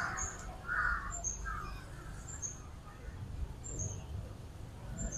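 Birds calling: three harsh caws in the first two seconds, and a short, high two-note chirp repeating about once a second, over a low street rumble.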